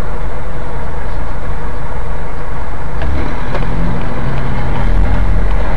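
Car engine and road noise heard from inside the cabin through a dashcam microphone: a loud, steady low rumble.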